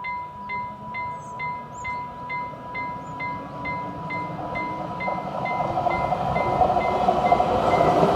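Level-crossing warning bell ringing in even strokes about twice a second. From about halfway through, the running noise of an approaching X10p electric multiple unit rises steadily and grows louder than the bell.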